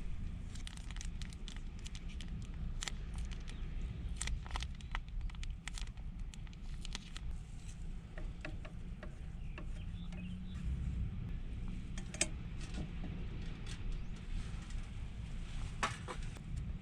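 Rain drops tapping irregularly on the van's roof, over a steady low rumble.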